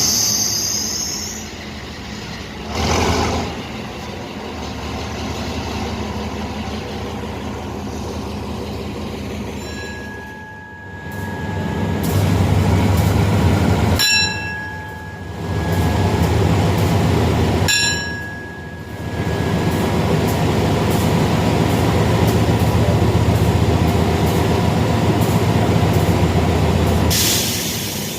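Diesel train running through a station: a low engine rumble and rolling-stock noise that swell louder twice, with three short high-pitched tones about 10, 14 and 18 seconds in.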